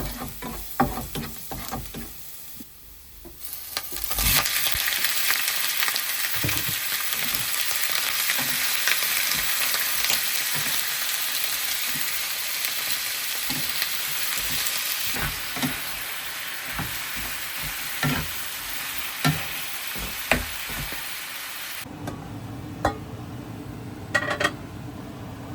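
Chicken sizzling and frying in a hot pan, stirred with a utensil that clinks and knocks against it. A few knocks come first; the loud sizzle starts about four seconds in and cuts off suddenly near the end, leaving a low steady hum and a few clicks.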